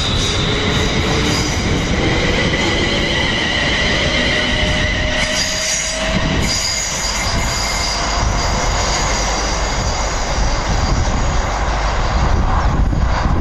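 London Midland Class 350 Desiro electric multiple units: the first pulls away with its traction motors whining in slowly rising pitch. About six seconds in the sound changes abruptly to another Class 350 approaching round a curve, with steady high wheel squeal over the rail noise, getting louder near the end.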